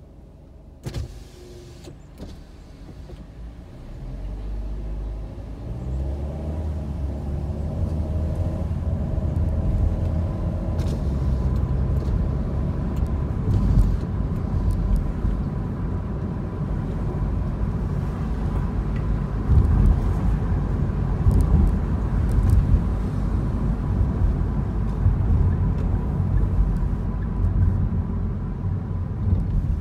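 A car pulling away from a stop. It is quiet at first, with a single click about a second in, then the engine note rises as the car speeds up. This settles into a steady low rumble of engine, tyre and wind noise, with occasional louder bumps.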